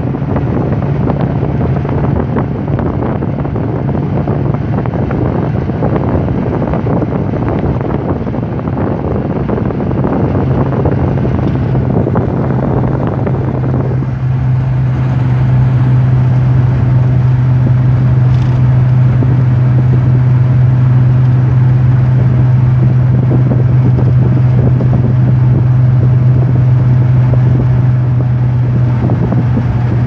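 Car driving along a highway, heard from inside the cabin: a steady low engine drone under road and wind noise. About halfway through, the drone settles a little lower and grows louder while the rushing noise above it eases.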